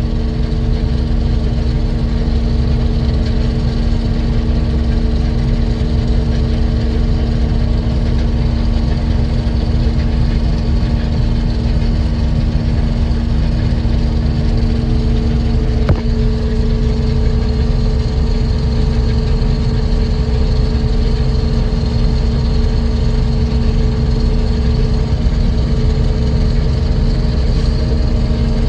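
A large farm vehicle's engine runs steadily, a constant low rumble with a steady hum on top. About halfway through there is a brief click, and the hum's pitch shifts slightly.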